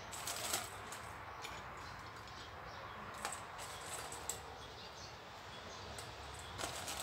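A few light clicks and clinks from a stainless steel bowl being handled while grated coconut is pinched out of it by hand: some near the start, a few around three to four seconds in, and a cluster just before the end.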